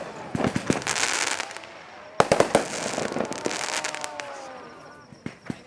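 Fireworks going off: sharp bangs of bursting shells with crackling in between, a dense cluster of bursts about two seconds in and two more bangs near the end.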